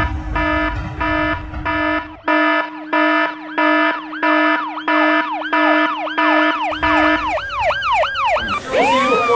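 An electronic alarm beeping about twice a second. From about three seconds in, a siren joins it, its pitch swooping rapidly up and down, and near the end the siren takes over alone. A low rumble runs under the first two seconds and comes back near the end.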